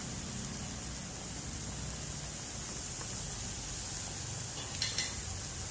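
Pancit bihon broth simmering in a wok, a steady bubbling hiss. A brief clatter near the end.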